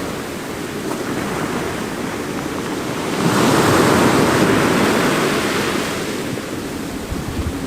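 Mediterranean sea waves washing into a cove: a steady wash of surf, with one wave breaking louder about three seconds in and fading away over the next few seconds.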